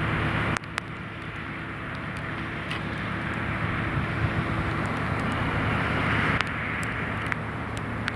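Heavy rain hissing, with scattered sharp ticks of drops, over a steady low hum. The sound drops abruptly about half a second in and shifts again past six seconds.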